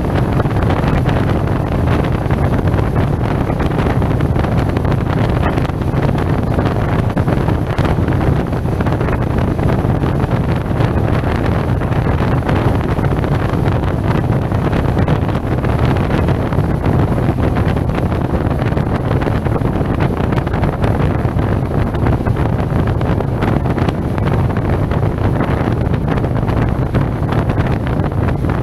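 Wind rushing over a helmet-mounted action camera's microphone while riding a SYM Maxsym TL 508 maxi-scooter, with the engine running beneath it at a steady, light throttle. The wind noise is loud and even, with no revving or changes.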